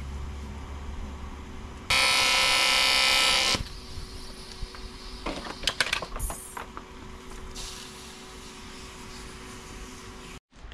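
Electric welding arc buzzing for under two seconds, about two seconds in, as an aluminium boss is welded onto a steering wheel. Scattered clicks follow and a faint steady hum runs beneath.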